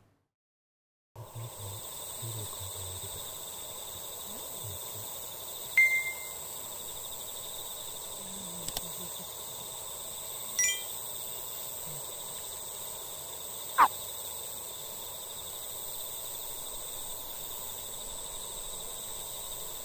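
Evening lakeside ambience: a steady, high insect chorus. A few brief chirps and clicks come about six, eleven and fourteen seconds in.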